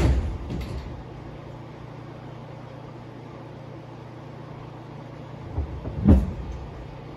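Inside an Incheon Subway Line 1 car stopped at a station: a loud thud right at the start, typical of the sliding doors shutting. Then the car's steady low hum, with two more thuds about five and a half and six seconds in, the second the loudest.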